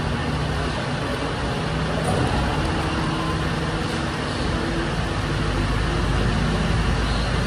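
Refuse truck's engine running steadily while the truck stands parked, a continuous low hum with a noisy din over it.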